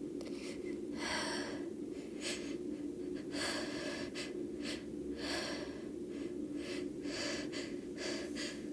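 A woman's sneeze build-up: a series of short, breathy, catching inhalations, about one a second.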